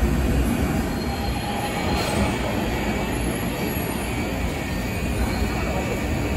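A Busan–Gimhae Light Rail train running through the station: a steady rumble with a faint high wheel squeal.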